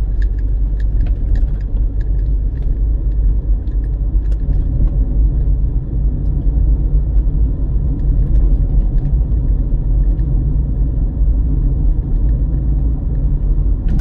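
Steady low rumble of a car's engine and road noise, heard from inside the cabin while driving.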